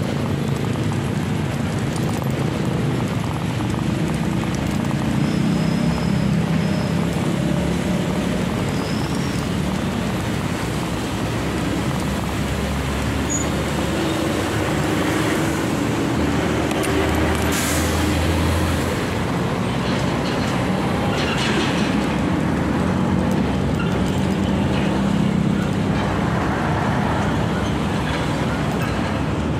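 Steady road traffic noise from cars and other vehicles passing on a busy road, with a couple of brief hissing sounds a little past the middle.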